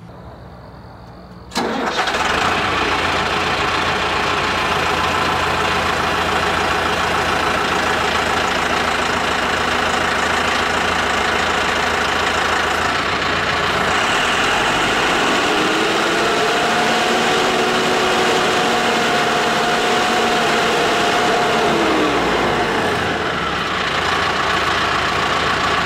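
Mahindra 8560 tractor's diesel engine running hard while its front loader lifts against a chained load cell. The engine comes in abruptly after a quieter first second and a half. A higher whine joins for several seconds in the middle and then falls away.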